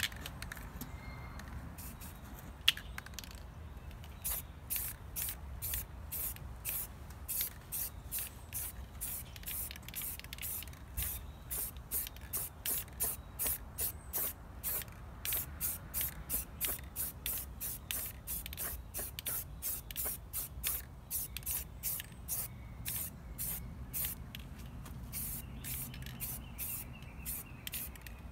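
Aerosol spray-paint can hissing in short, quick bursts, about two a second, as a brake rotor is spray-painted. A single sharp click comes just before the spraying starts.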